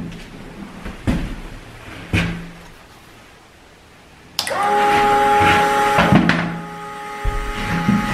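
A couple of light knocks, then about four and a half seconds in the Ladies First automatic chicken door's electric drive motor starts with a steady whine, driving the door down to close.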